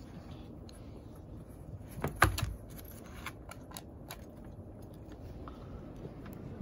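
A Shiba Inu puppy's paws landing with a single thump on composite deck tiles about two seconds in, followed by a few light clicks of claws on the tiles as it walks.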